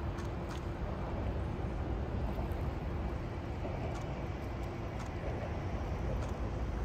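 Steady low rumble with a faint steady hum from the lake freighter Arthur M. Anderson under way close by; no horn is sounding yet.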